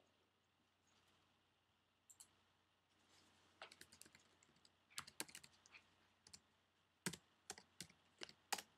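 Faint, irregular keystrokes on a computer keyboard: scattered clicks at first, coming more often in the second half.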